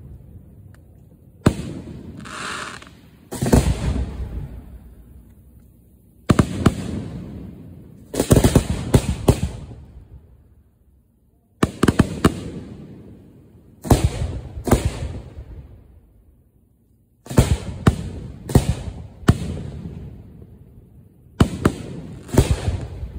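Aerial firework shells fired from mortar racks at close range: sharp bangs, some single and some in quick clusters, every two to three seconds, each trailing off into a long fading rumble.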